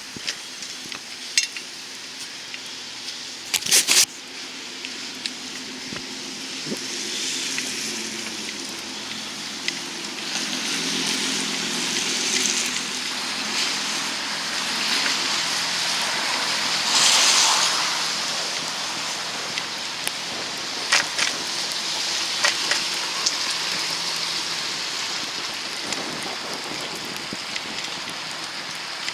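Snowy city street ambience: a steady hiss of traffic on wet, slushy roads, swelling as a vehicle passes about 17 seconds in. A few sharp clicks stand out, one near the start and a pair about three quarters through.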